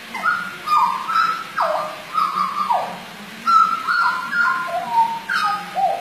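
Hooded butcherbird singing: a run of clear whistled notes, several of them sliding sharply down in pitch.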